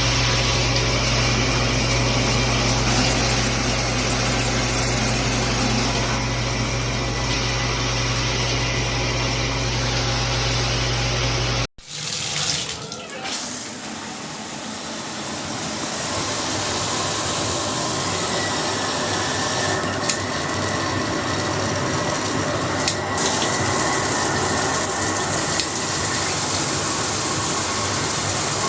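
Water spraying from a high-pressure shower head, a steady hiss. For the first part a low steady hum runs underneath; after an abrupt cut about twelve seconds in, the spray goes on without the hum.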